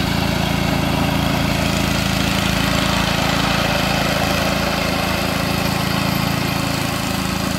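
Walk-behind sod cutter's small gasoline engine running steadily under load as the machine cuts up the old lawn in strips.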